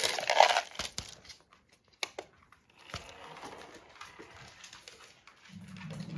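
Crinkling of a packet of dry cat food being handled, stopping within the first second, then a few sharp clicks about a second apart.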